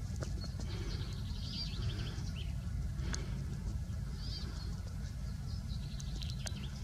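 Birds chirping now and then over a steady low rumble, with a few light clicks.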